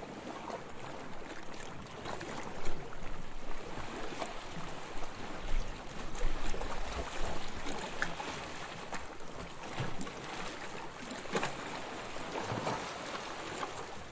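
Sea water washing and lapping, with many small splashes and an uneven swell in loudness, strongest about three seconds in and again around six seconds in.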